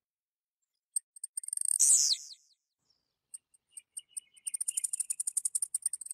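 Blue-black grassquit (tiziu) singing. A few sharp high ticks lead into a loud buzzy note that falls in pitch, about two seconds in. After a pause comes a rapid run of high ticks, about ten a second, building toward the next buzzy note.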